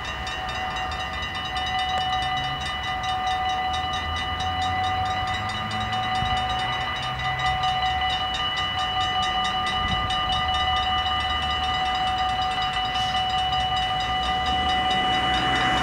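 Dutch level crossing warning bell ringing rapidly and without a break, a steady ringing tone with quick repeated strokes, signalling that a train is approaching. A low rumble runs beneath it.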